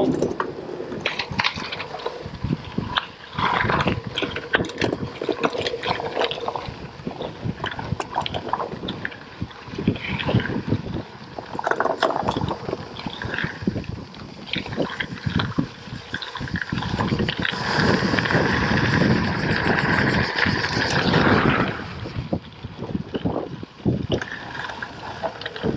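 Scott Speedster gravel bike's tyres crunching over a gravel path, with the bike rattling and clicking over the stones, and wind noise on the camera microphone. A louder, denser stretch lasts about four seconds, a little past the middle.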